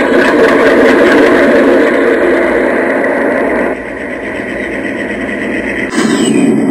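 Diesel locomotive engine sound idling steadily. It drops in level a little under four seconds in and comes back louder at about six seconds.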